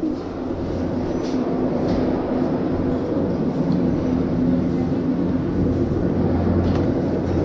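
Gondola lift station machinery running: a steady low mechanical hum and rumble as the cabins circulate through the station, with a few faint clicks.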